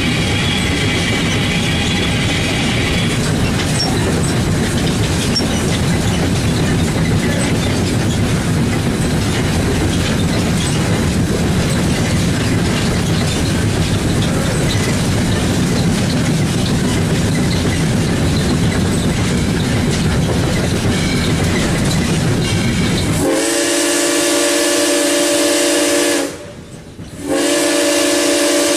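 Steady rumble and clatter of steam locomotive No. 630 running, heard from inside its cab, with a thin high squeal over the first few seconds. Near the end the locomotive's steam whistle blows twice, a long blast and then, after a short gap, another.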